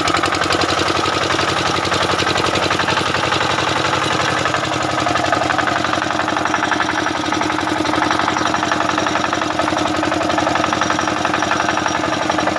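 Hand-cranked single-cylinder diesel generator engine running steadily with a fast, even firing beat, freshly started after standing unused for a long time.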